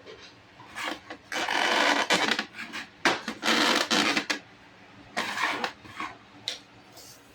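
Rubbing strokes on a hard surface, such as cleaning by hand: two long strokes and a shorter third, with a couple of light knocks near the end.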